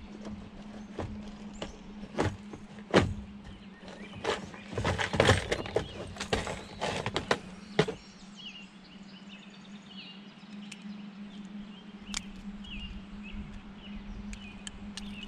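Irregular knocks and clatter of fishing gear being handled in a plastic kayak, loudest in the first half. After that it goes quieter, with a bird chirping in short repeated calls.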